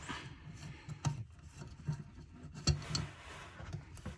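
A toilet water supply line's coupling nut being worked loose by hand at the tank: faint rubbing and scraping with a few small clicks.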